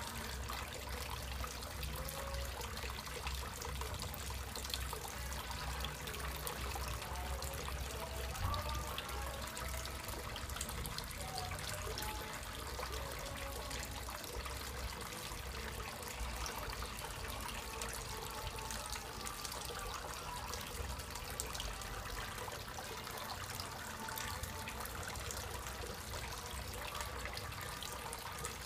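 Steady trickling and splashing of water as a pump's outflow pours onto the surface of a small tub pond.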